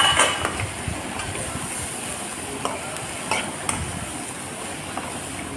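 Chopped vegetables sizzling in butter in a pan while being stirred, with a few light clicks of the stirring utensil against the pan over a steady hiss.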